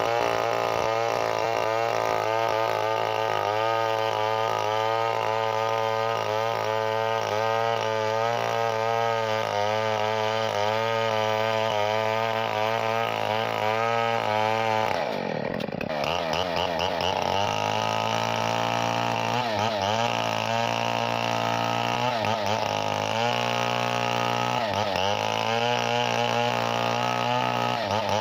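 Chainsaw engine running steadily at speed. Its pitch drops sharply and recovers about halfway through, and dips briefly twice more near the end.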